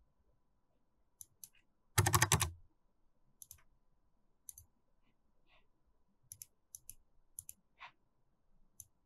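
Computer mouse clicks, many in quick press-and-release pairs, with a short burst of keyboard typing about two seconds in.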